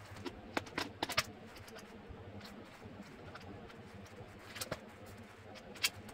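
Hard plastic parts of a new cordless stick vacuum clicking and knocking as they are handled and fitted together. There is a cluster of sharp clicks about a second in, two more near the end, and then one loud snap.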